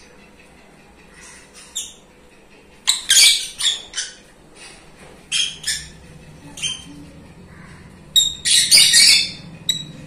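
Baby birds being hand-reared, calling in short high-pitched calls that come a few at a time, with the loudest, densest cluster near the end.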